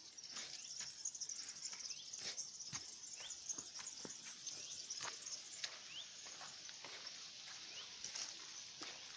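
Steady high-pitched chorus of crickets trilling in the fields, with scattered light clicks and a few brief rising bird chirps.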